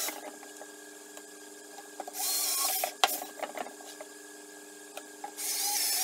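Cordless drill running in short bursts of under a second, boring screw holes through a wooden board: once about two seconds in and again near the end, with a wavering motor whine. A few light knocks come between the bursts.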